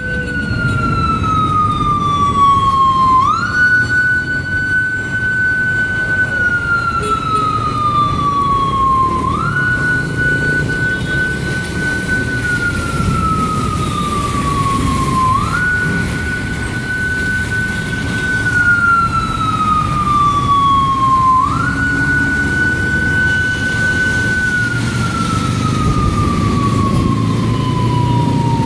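A siren wailing in a slow, even cycle: a quick rise, a held tone, then a slow fall, repeating about every six seconds. Beneath it is a steady rumble of traffic on wet roads.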